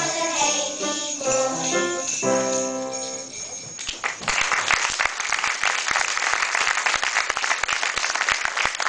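Children's choir singing a Christmas song with jingle bells shaken along. The song ends about three and a half seconds in, and the audience then claps steadily.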